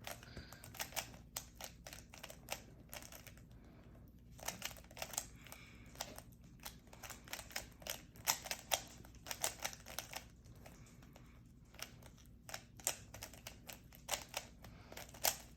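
Rubik's cube being turned fast by hand: its plastic layers give quiet clicks in quick, irregular runs of several a second, with short pauses between runs.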